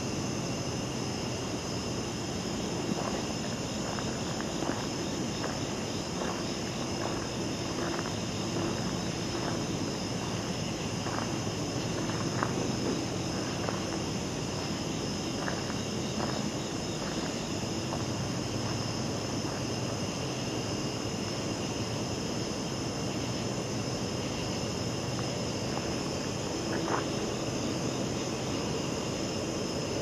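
Steady chorus of night insects singing in a continuous high, even drone, over a low steady hum. Scattered short crunches of footsteps on the leaf-littered path, mostly in the first half.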